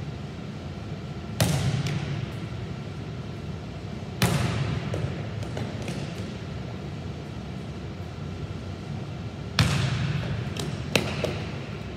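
A ball striking the hardwood floor of a gym, four loud smacks at uneven intervals with fainter taps between them, each ringing out in the hall's long echo.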